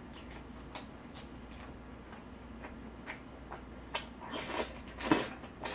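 Close-up eating sounds: chewing with small wet mouth clicks, then about four seconds in a louder noisy slurp as a chopstickful of stir-fried kimchi goes into the mouth, followed by more chewing.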